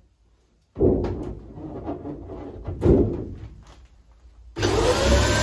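Knocks and clattering of handling against the van's sheet-metal side wall, then about four and a half seconds in an electric nibbler starts abruptly and runs, a loud steady motor noise with a faintly rising whine.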